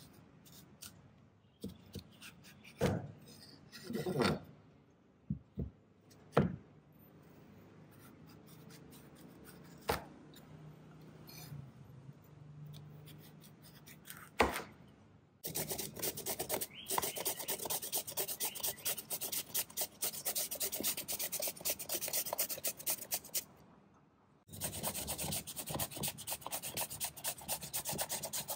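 A kitchen knife cutting through a peeled raw taro on a bamboo cutting board, with several sharp knocks of the blade on the board. About halfway through it gives way to the taro being shredded on a coarse hand grater: fast, even rasping strokes that stop briefly near the end.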